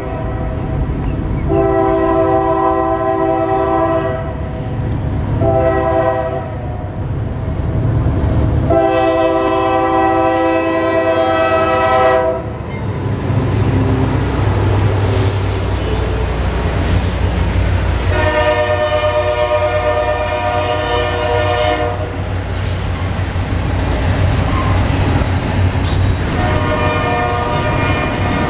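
Norfolk Southern diesel freight locomotive's multi-chime air horn sounding a series of blasts, long, short and long, then two more long blasts later on. Under the horn, the engine rumbles past and the double-stack container cars roll by on the rails.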